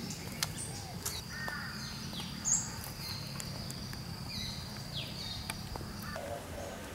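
Birds calling with short, repeated downward-sliding chirps over a steady high-pitched insect drone that stops about five seconds in, with a low rumble underneath.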